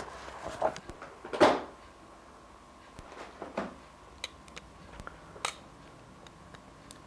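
Handling sounds: several short rustles, the loudest about a second and a half in, and a few small clicks and taps as a pair of glasses is taken from its case.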